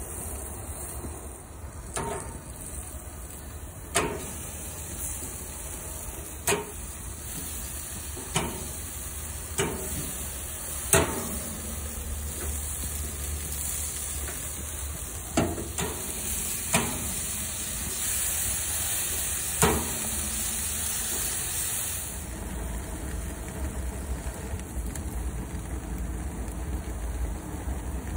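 Hickory-smoked ribs sizzling on a barbecue grill, a steady hiss that swells for a few seconds past the middle, with about nine sharp clinks or knocks a second or two apart.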